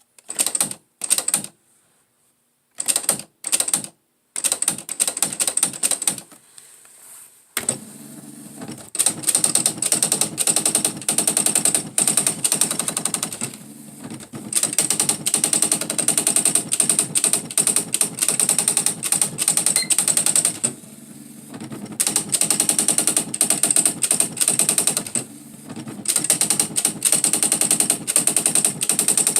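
Smith Corona SE 200 electronic typewriter printing with its daisy-wheel print wheel. A few short separate bursts are followed, from about seven seconds in, by a fast machine-gun-like run of strikes broken by a few brief pauses.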